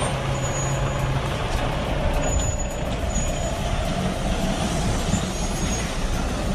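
Tatra Phoenix 6x6 truck running in a demonstration: a steady engine sound with a continuous whine over it.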